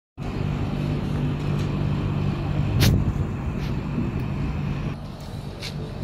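Steady low hum of air-conditioner outdoor units running, with a few short sharp clicks; the loudest click comes about halfway through.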